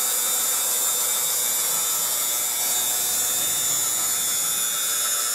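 Model steam-turbine locomotive running: its 60 mm single-wheel steam turbine whines steadily at high speed over a loud, even hiss of steam, with no change in pitch or level.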